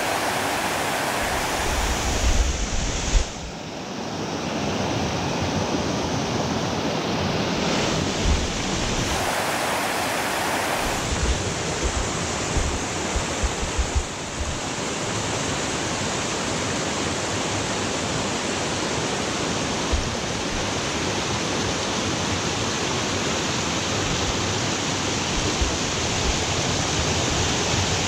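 Stream rushing and splashing over small cascades: a steady, even rush of water. A few brief low thumps break in now and then.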